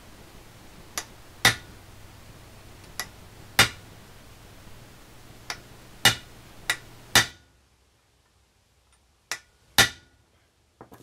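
Hammer striking a chisel held against a Citroën 2CV's kingpin housing: sharp metallic blows, mostly in pairs of a light tap and a harder hit, about ten in all with a pause of about two seconds before the last pair. The chisel is staking the pressed-in end plug all around its rim so it is locked in the hole.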